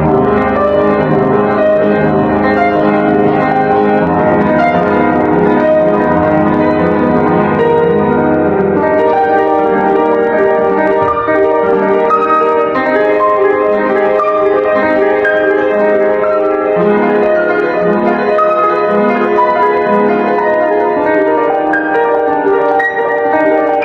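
Acoustic piano playing a fast solo piece with many dense notes, a little out of tune. The bass part is fuller for about the first nine seconds, then thins.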